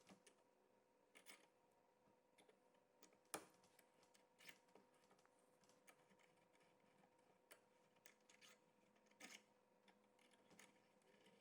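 Near silence: a faint steady hum with a few scattered faint clicks.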